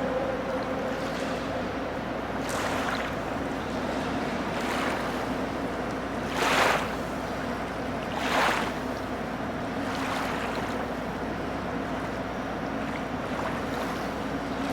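Swimming-pool water sloshing and splashing as someone moves through it, with two louder splashes about six and a half and eight and a half seconds in, over a steady low hum.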